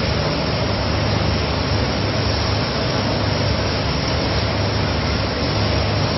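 Volute screw sludge dewatering machine running: a steady low hum under an even rushing noise, unchanging throughout.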